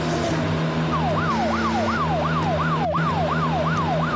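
Cartoon police car siren: a fast up-and-down wail, about three rises and falls a second, starting about a second in after a falling tone dies away, over a steady low hum.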